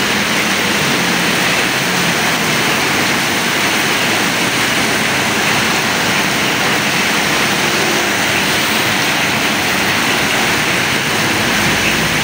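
Heavy tropical downpour falling steadily on a wet asphalt street, a loud, even hiss of rain.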